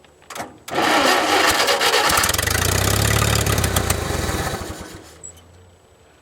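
Old Hobart engine-driven welder's engine cranked over by its starter for about four seconds without catching, then winding down. The owner takes it to be not getting any fuel after sitting for 15 years.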